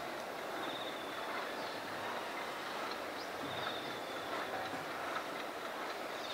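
Steady background noise with no clear single source, crossed a few times by a faint, rapidly pulsed high trill.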